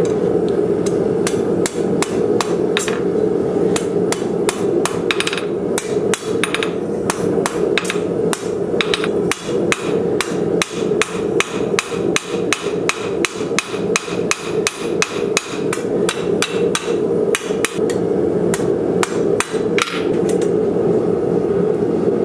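Hand hammer forging a glowing-hot steel flat bar on an anvil: steady blows, about three a second, over a steady drone.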